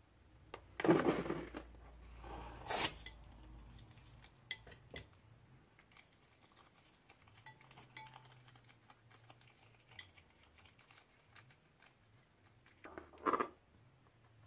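Rhinestones and small beads dropping into a glass bowl of liquid glue, clattering and clinking: a loud spill about a second in, a shorter one just before three seconds, then scattered light clicks and taps. A brief handling noise comes near the end.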